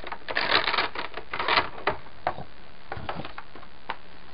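Industrial-strength hook-and-loop Velcro being pried apart with a popsicle stick: a crackling rasp in short bursts over the first two seconds, then a few scattered clicks.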